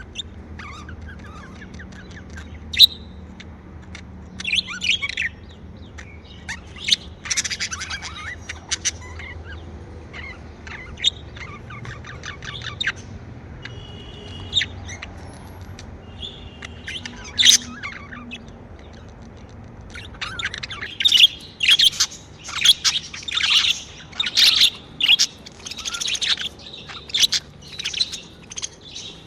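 Pet budgerigars chirping and chattering in short bursts, scattered at first and then busy, near-continuous chatter for the last third, with occasional sharper squawks.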